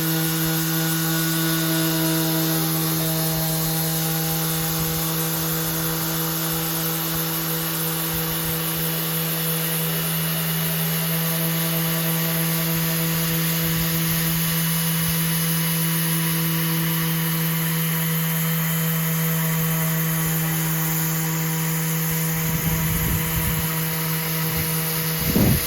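Electric sander running steadily on hardwood boards of recycled spotted gum, taking the old finish off with 80-grit paper; its motor hum holds a constant pitch under the rasp of the paper. A few low knocks near the end.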